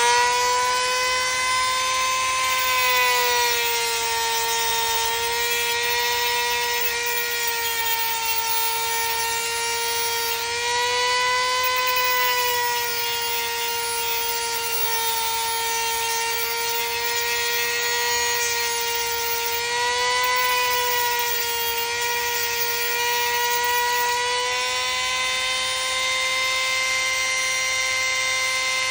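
Dremel rotary tool whining steadily at high speed while grinding the sharp cut ends of a metal wire rack, its pitch sagging slightly now and then as the wheel bites into the metal.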